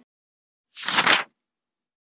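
A page-turn sound effect: one short papery swoosh about a second in.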